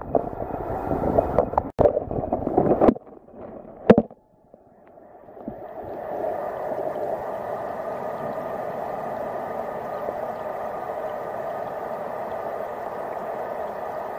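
Stream water heard through a submerged camera. For the first three seconds there is loud, uneven churning and rumbling. About four seconds in comes a single knock. After that the flowing water settles into a steady muffled hum.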